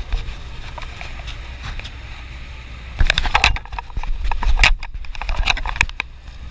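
Motor boat under way: a steady low engine drone under the rush of its wake. About halfway in come several loud, irregular buffeting bursts over it for a few seconds.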